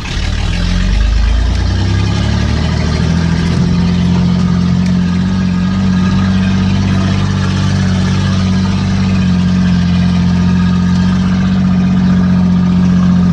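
1992 Chevrolet Silverado 1500 pickup engine pulling under load up a hill. The revs rise over the first few seconds, then hold steady.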